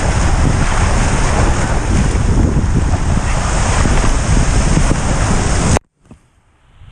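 Rushing water and wind buffeting the microphone during a raft ride down a water slide. The noise is loud and steady, cuts off suddenly near the end, then slowly comes back.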